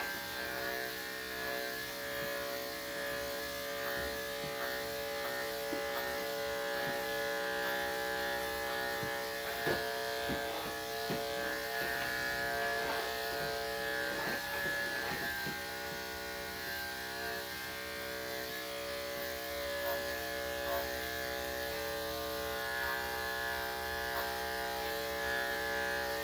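Electric dog-grooming clippers running with a steady buzz as they cut the dog's fur, with a few faint clicks partway through.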